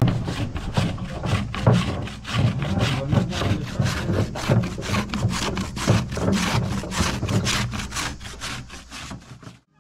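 Rhythmic rasping strokes, about three a second, like something being scraped or sawn back and forth; they cut off abruptly near the end.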